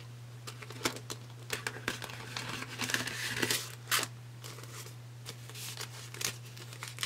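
Paper banknotes rustling and crinkling as they are pulled from a clear plastic cash envelope in a binder and fanned through by hand, in short, irregular crackles.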